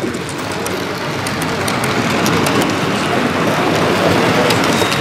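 Model train running on layout track: a steady rolling noise with many rapid small ticks from the wheels and track.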